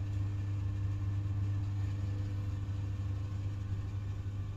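Vevor laser fume extractor's fan running with a steady low hum, a little quieter near the end as the cabinet door closes over it.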